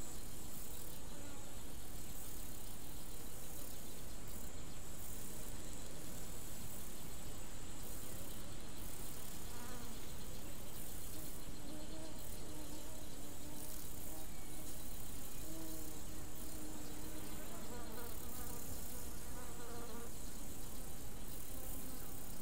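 Insects buzzing, with a steady high hiss behind them; faint wavering hums come and go, mostly between about ten and twenty seconds in.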